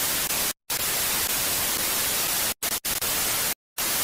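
TV-static hiss laid over retro VHS-style title cards, steady across the whole range, cutting out abruptly four times for a split second each.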